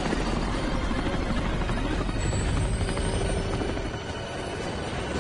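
Helicopter rotor and engine noise, loud and continuous, dipping briefly about four seconds in, with music playing underneath.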